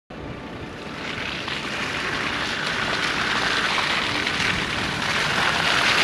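Land Rover Defender driving up a wet, muddy track toward the listener, its engine and tyres on the mud growing steadily louder as it approaches.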